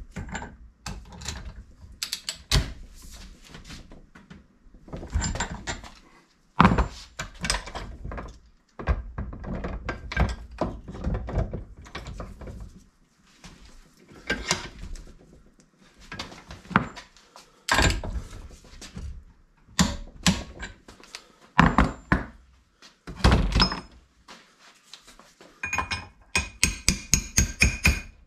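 Hand tools at work on a classic Mini's front swivel hub: irregular metal knocks and clicks as the tools are worked and set down, with a quick run of regular clicks near the end.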